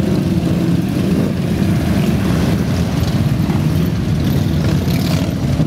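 A dense column of Harley-Davidson V-twin motorcycles riding past, many engines running together in a steady, deep drone.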